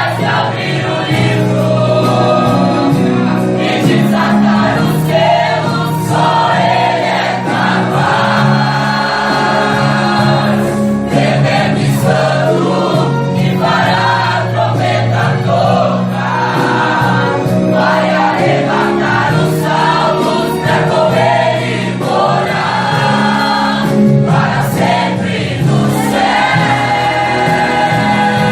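Choir singing a gospel hymn over steady musical backing.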